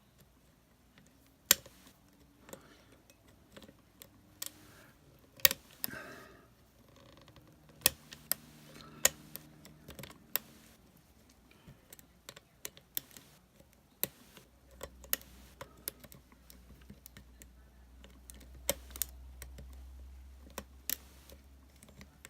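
Lock pick and tension wrench working the keyway of a Master Lock lockout-tagout padlock: irregular sharp metal clicks and ticks, the loudest about a second and a half and five and a half seconds in.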